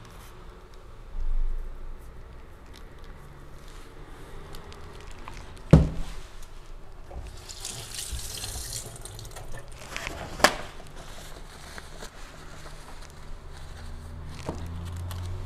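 Handling noises around a steel exam table, with two sharp knocks, one a little before halfway and one about two-thirds of the way in, and a hiss of about two seconds between them.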